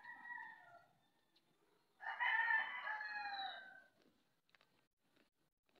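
Rooster crowing: a short call right at the start, then a full crow of about two seconds beginning about two seconds in.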